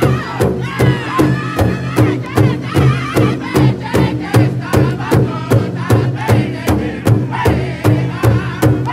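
Powwow drum group: several men beating a large hide-covered drum in unison with a steady, fast beat of about three to four strokes a second while singing together.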